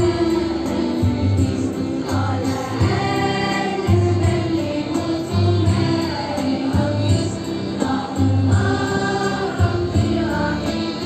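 Choir singing an Arabic patriotic song over music with deep, recurring bass beats.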